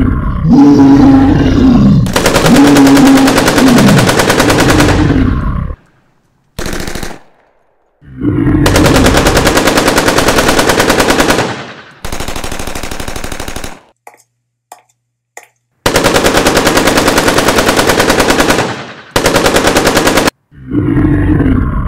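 Sound-effect automatic gunfire, in several long bursts of rapid shots, with a pitched, wavering creature cry over the first few seconds.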